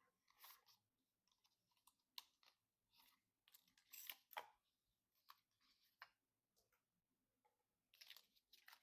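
Faint, irregular clicks and short rustling scrapes of PC parts being handled during assembly, the loudest about four seconds in.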